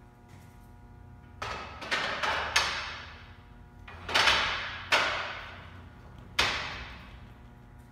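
A metal monitor-mounting bracket clanking against an aluminium-extrusion stand frame as it is fitted: about seven sharp metallic knocks in irregular clusters, each ringing briefly.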